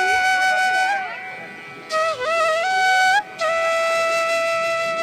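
Flute music: a single flute playing slow, long-held notes that bend and slide into one another, with short breaks between phrases.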